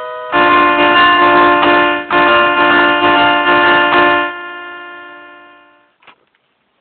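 Ringtone playing a loud held chord of many steady tones for about four seconds, with a brief dip about two seconds in, then fading away; a single faint click follows near the end.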